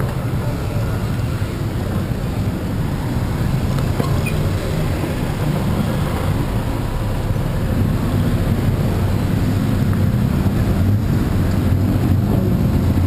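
Busy city street traffic: engines of tuk-tuks, motorbikes and cars running close by. It grows a little louder in the second half as tuk-tuks pass near.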